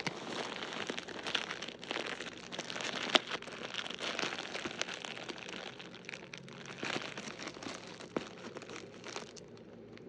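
Packaging crinkling and rustling as a parcel is unwrapped by hand, with many sharp crackles; it dies down near the end.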